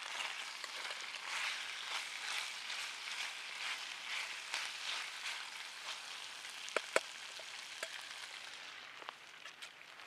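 Pasta sizzling in a stainless frying pan over a campfire as it is stirred with a spoon, the sizzle swelling and dipping about twice a second and fading over the last few seconds. Two sharp clicks about seven seconds in are the loudest moments.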